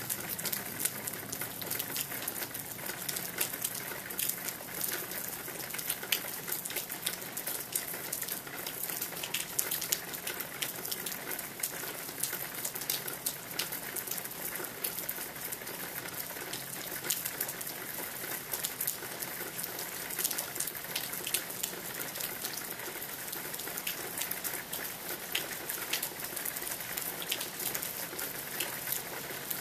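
Steady rain falling, with many individual drops ticking sharply on a nearby surface over an even hiss.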